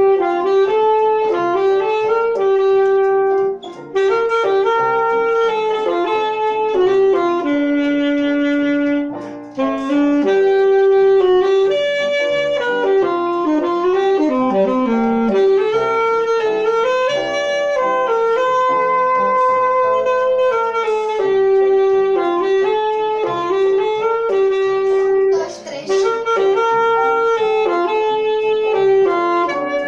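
A saxophone playing a slow melody of held notes, with short breaks about 4 s, 10 s and 25 s in.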